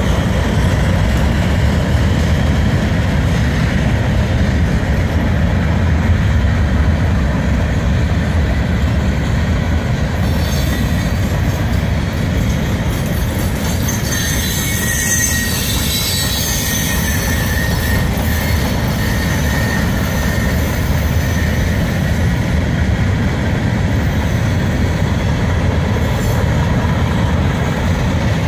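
Loaded freight cars of a long mixed freight train (centerbeam lumber flatcars and coil cars) rolling past, a steady heavy rumble of steel wheels on rail. A high wheel squeal rises above the rumble for a few seconds around the middle.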